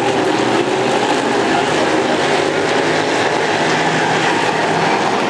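Several semi late model dirt-track race cars' engines running at racing speed together, a loud steady drone of overlapping engine notes whose pitch wavers slightly.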